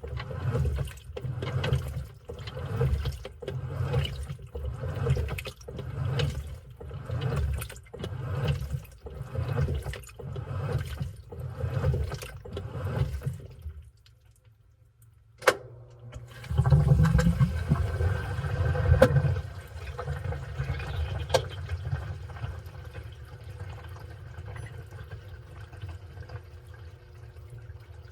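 Washing machine agitating its wash load, water sloshing in regular surges a little over once a second. The drum stops, a single click sounds, and then water rushes through the machine loudly and gradually eases off.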